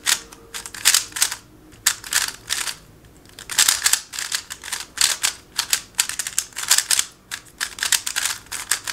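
Moyu RS3 M Maglev magnetic 3x3 speed cube being turned fast: rapid bursts of plastic clicking and clacking from the layer turns, broken by short pauses.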